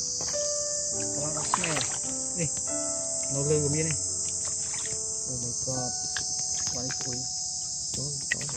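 Steady, high-pitched insect chorus droning without a break, with a few light clicks and splashes from hands working in shallow pond water.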